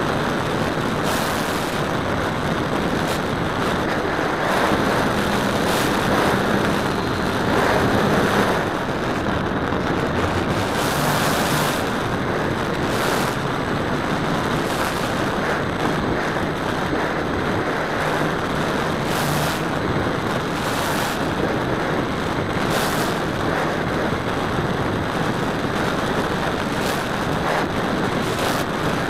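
Radio-controlled model airplane in flight, heard from its onboard camera: steady wind rush over the microphone with the hum of the propeller and motor underneath, and brief gusts of hiss now and then.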